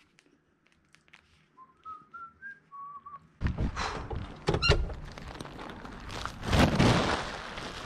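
A person whistles a short tune of about five brief notes. Then, a little over three seconds in, it turns abruptly to loud rustling and handling noise with several knocks.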